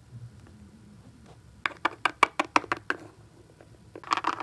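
Hard plastic toy figures hopped along a stone countertop, making a quick run of light taps like little footsteps about a second and a half in, with a few more taps near the end.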